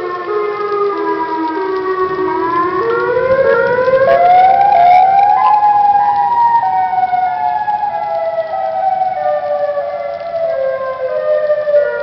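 Outdoor tornado warning sirens wailing. Their pitch falls over the first couple of seconds, climbs steeply about three to five seconds in, then slowly falls again.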